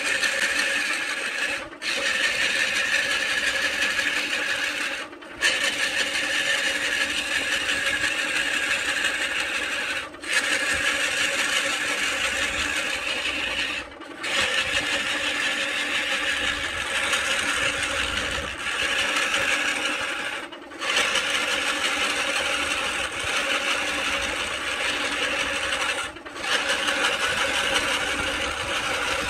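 Wood lathe spinning a coconut palm log blank while a turning tool cuts into it: a continuous scraping cutting noise over the machine's steady hum. The noise is broken by short dips every few seconds.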